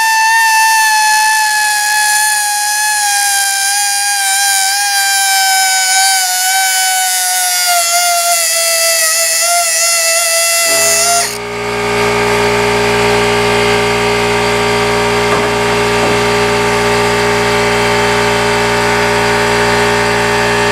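Quarter-inch air die grinder with a cutting wheel running at a loud high whine, its pitch sinking slowly as it works, cutting through a bearing cage on the axle carrier. About halfway through the sound changes abruptly to a harsher, fuller noise with a steady low hum underneath.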